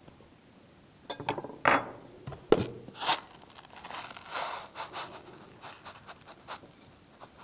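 A knife and food packaging handled while making sandwiches: after about a second of quiet, a run of clicks, scrapes and knocks, the sharpest a single knock about two and a half seconds in, then lighter scraping and ticking.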